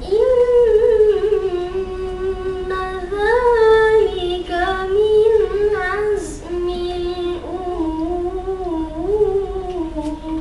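A boy's voice reciting the Quran in melodic tarannum style through a microphone: long held notes with ornamented turns, and a brief breath about six seconds in.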